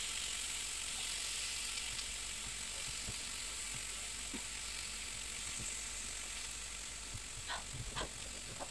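Chicken breasts sizzling steadily on a hot ridged grill pan, a constant even hiss. A few light knocks near the end.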